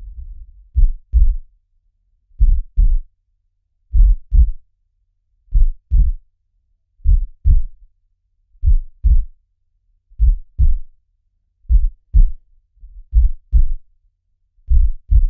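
Heartbeat: slow, steady double thumps (lub-dub), one beat about every second and a half, deep and low.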